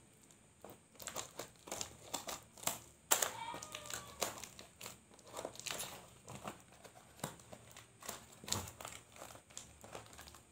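Taped cardboard-and-paper parcel wrapping being cut with scissors and pulled open by hand: irregular crinkling and rustling, broken by short sharp snips and scrapes.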